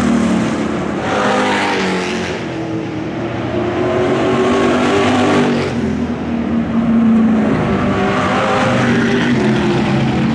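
Supermodified race cars' V8 engines running at speed on the track, loud and continuous, the engine note rising and falling as the cars pass and lift through the turns.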